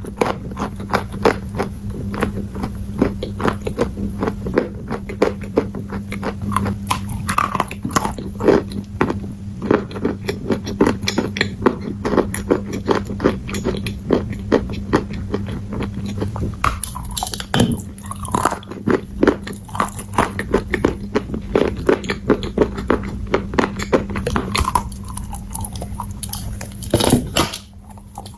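Crunchy bites of dry edible clay chunks being bitten and chewed, a dense run of sharp crunches and crackles, over a steady low hum.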